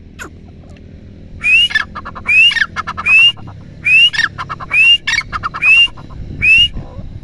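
A teetar (grey francolin) calling: seven loud, quickly repeated calls starting about a second and a half in. Each is a rising whistled note followed by a short rattle.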